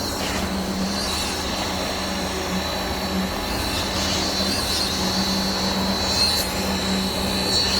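KCP63 concrete pump truck running steadily, a constant high-pitched whine over a low hum and rumble.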